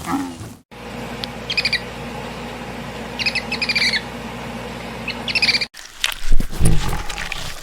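A bird calling in three short runs of quick chirps, over a steady low hum. About six seconds in, a sudden louder burst of low thuds and clicks follows.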